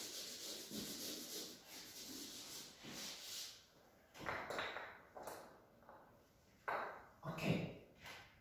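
A felt chalkboard duster rubbing across a chalkboard, wiping off chalk writing, for the first three seconds or so. Then come a few scattered knocks and scuffs; one, about four seconds in, is the duster being set down on the board's ledge.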